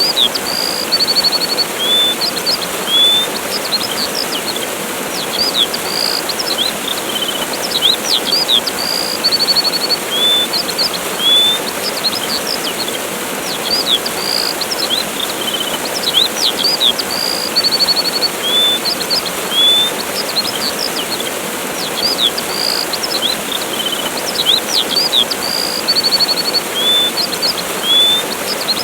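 A waterfall's steady rush with songbirds chirping over it: many quick high chirps and a few short trills. The same run of bird calls comes round about every 12 seconds, as in a looped recording.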